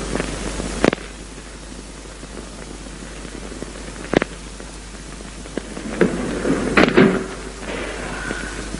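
A few sharp knocks over a steady hiss: single knocks a little under a second in and about four seconds in, then a quick cluster of knocks around six to seven seconds in.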